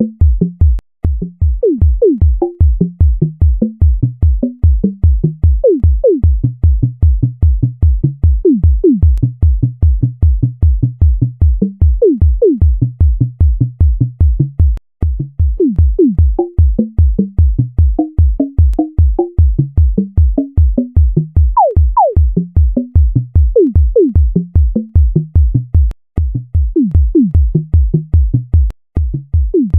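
Synthesized tones from a sonification of the Introsort sorting algorithm: a fast, steady run of short electronic blips whose pitch jumps up and down with the values being compared and moved, with now and then a quick falling sweep.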